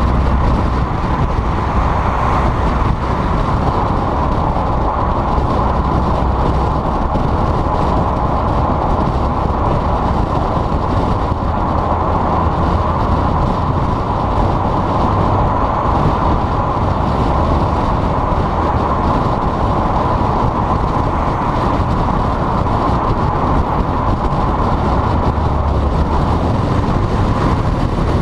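Volkswagen GTI driving at a steady speed: a constant rush of road and wind noise over a low engine and exhaust drone, with no revving.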